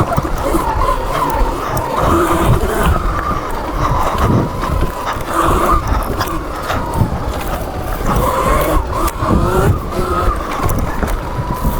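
Sur Ron electric dirt bike with its stock motor on a BAC4000 controller, ridden hard on a dirt trail: the motor and drivetrain whine rises and falls in pitch with the throttle, over a steady rumble of wind and knobby tyres on dirt.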